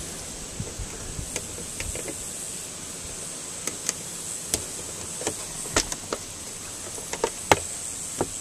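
Fingers tapping and clicking on the plastic overhead console of a Dodge Grand Caravan while feeling for the latch of the fold-down rear TV screen: a scatter of small clicks, the loudest near the end, over a steady high hiss.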